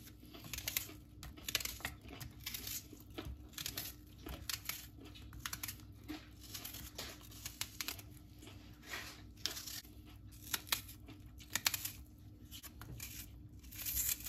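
Crinkly packaging being handled and torn, in irregular bursts of crackling and rustling, some louder than others.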